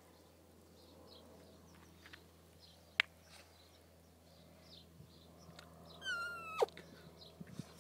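A short, high animal cry lasting about half a second, about six seconds in, that holds its pitch and then drops sharply at the end. Before it, faint bird chirps and a single sharp click about three seconds in.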